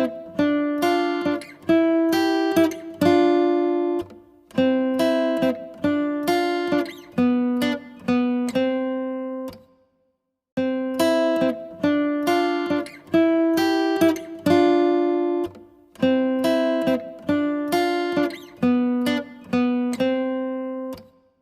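Background music: acoustic guitar playing plucked and strummed chords that ring and fade. The phrase stops briefly about ten seconds in, then starts over.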